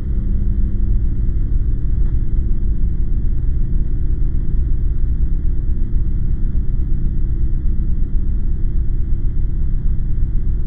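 A steady, loud, low rumbling drone from a horror film soundtrack, with no beat or melody, holding unchanged throughout.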